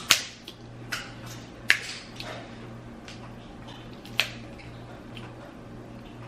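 Eating sounds at close range: a handful of sharp cracks and clicks, four loud ones in the first four seconds and fainter ones between, over a steady low hum.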